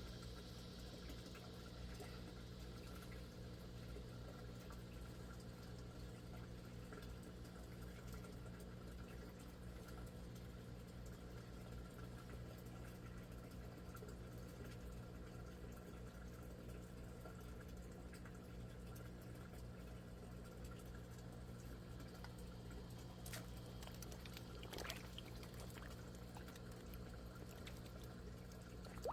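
Water pouring and trickling steadily in an aquaponics system, over a low steady hum, with a couple of faint clicks near the end.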